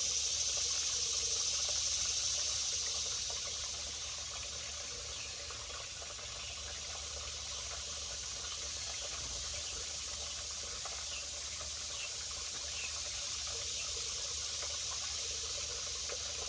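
Steady rushing noise like running water, with a few faint short chirps over it.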